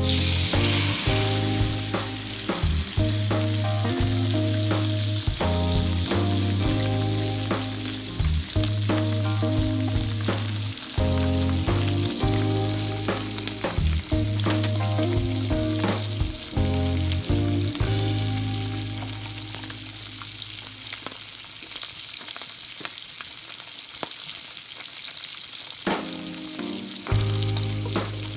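Salmon fillet frying in melted butter in a pan, a steady sizzle that flares up as the fish goes into the hot butter at the start. Background music with a bass line plays over it, dropping out for several seconds near the end while the sizzle carries on.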